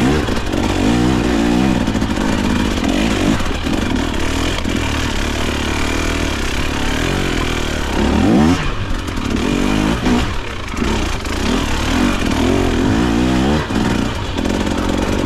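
KTM dirt bike engine revving up and down again and again under changing throttle on a steep, technical climb.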